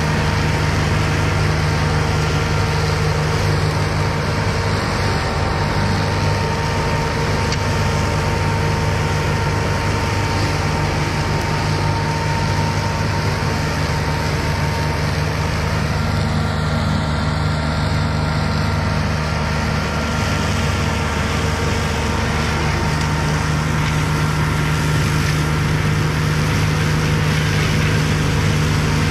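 IRUS Deltrak 2.5 remote-controlled tracked slope mower running steadily as it mulches tall grass, its engine and mulching head giving an even drone that holds the same speed throughout.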